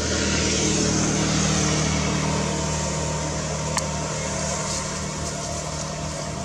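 A motor hums steadily under a constant hiss, with one sharp click a little under four seconds in.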